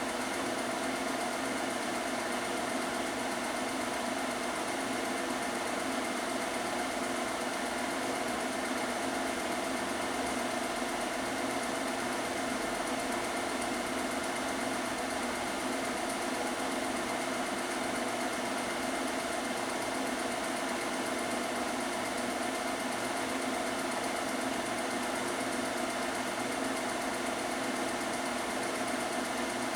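Film projector running steadily: an even mechanical whir and hum with no change in pace.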